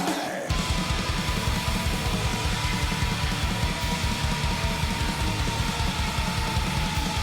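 Black metal song with distorted guitars. About half a second in, fast, pounding drums kick in under a long held high note that slowly sinks in pitch.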